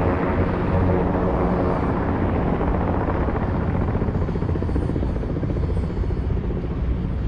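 Sikorsky S-58T helicopter running nearby, its rotor beating in an even pulse. It eases off slightly in loudness over the few seconds.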